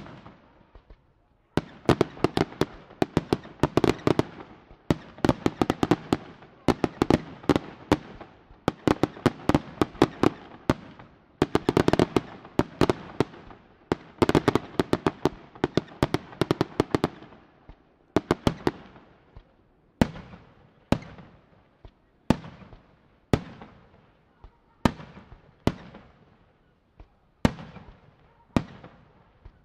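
Aerial fireworks bursting: a dense, rapid volley of bangs and crackles for about the first sixteen seconds, then thinning out to separate bangs about once a second, each trailing off.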